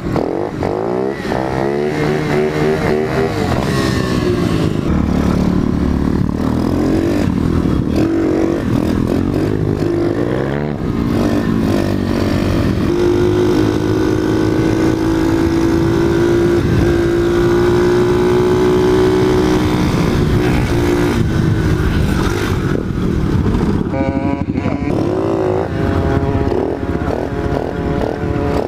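Pit bike's single-cylinder engine under way, revving up and dropping back as it changes gear, then holding a steady high pitch for several seconds in the middle before a run of quicker rises and falls near the end.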